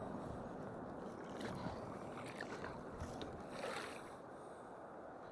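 Steady rush of a large river's current, with a few faint ticks over it.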